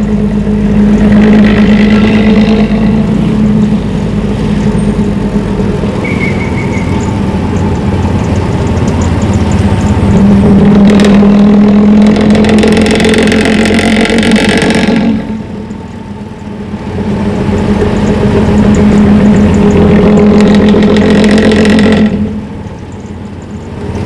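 Bus diesel engine running loud through a modified growling ('ngorok') exhaust, with a deep steady drone that swells and eases. The engine drops off about two-thirds of the way through, comes back up, and eases again near the end.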